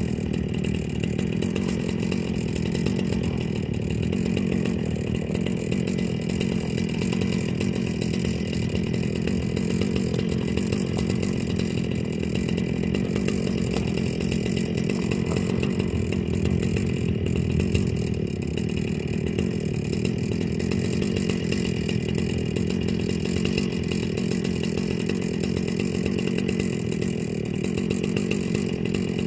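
Chainsaw engine running steadily at one constant speed, with no rise or fall in revs.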